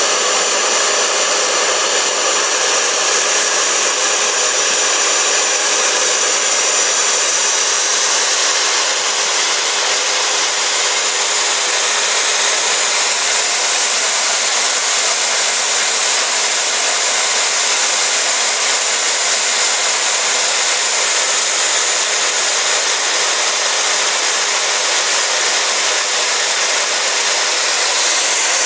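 CNC router spindle running steadily while milling a plastic gear, a continuous hiss with a steady whine in it.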